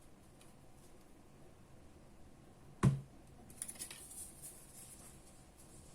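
Handling noise: a single sharp knock about three seconds in, then about a second of light scratchy clicking and rustling.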